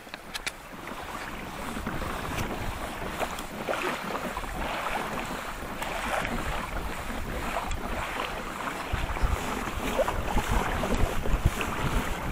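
Wind on the microphone and small waves lapping against a kayak's hull on open sea, the wind rumble growing stronger over the last few seconds.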